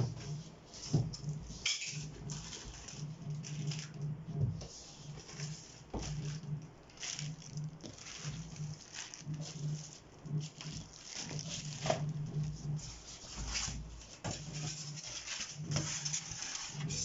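Irregular rustling, crinkling and light knocks of packing material being handled, with an on-off low hum underneath.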